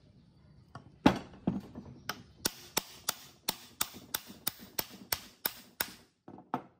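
A hammer striking repeatedly in a steady rhythm, about three sharp blows a second, fourteen in a row with the first the loudest, followed by two lighter taps near the end.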